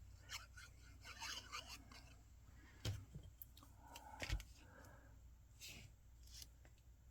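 Faint rustling and scraping of cardstock pieces being handled and pressed into place, with two light taps about three and four seconds in.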